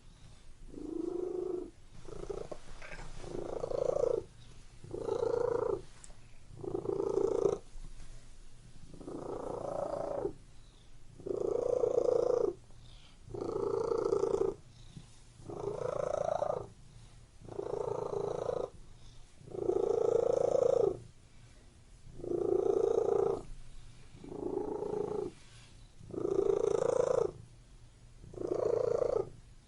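Domestic cat purring steadily, the purr swelling and fading in a regular rhythm with its breathing, about one pulse every second and a half to two seconds.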